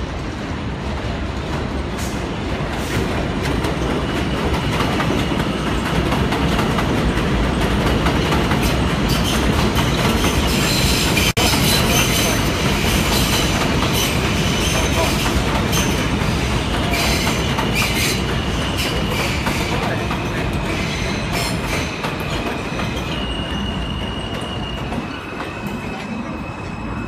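New York City subway train of R160 cars running on elevated track: a steady rumble of wheels on rail that builds to its loudest about halfway through, with high wheel squeal through the middle. Near the end a steady high whine steps down in pitch.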